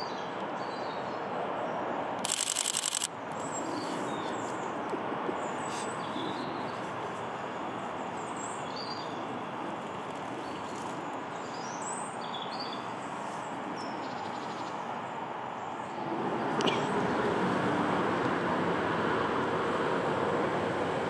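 Steady distant town rumble with birds chirping now and then. A short, loud, high-pitched screech comes about two seconds in, and the rumble grows louder about sixteen seconds in.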